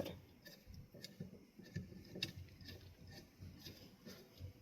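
Faint, scattered light clicks and taps of the ceiling fan's top housing being handled and worked into alignment.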